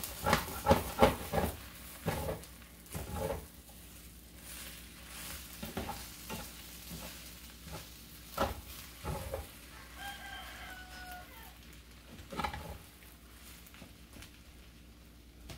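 A spatula scraping and knocking against a skillet as fried rice is stirred, over a quiet sizzle. There is a quick run of scrapes in the first few seconds, then scattered ones. A brief high-pitched call sounds about ten seconds in.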